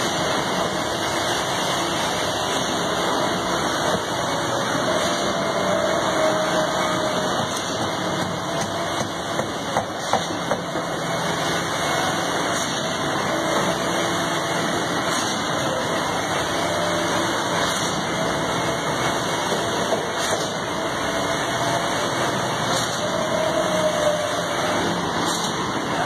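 Steady drone of heavy construction-machinery engines running on a concrete pour, with a faint wavering whine and a few light clicks about ten seconds in.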